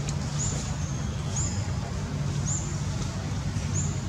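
Outdoor ambience: a steady low rumble with a short, high chirp repeating about once a second.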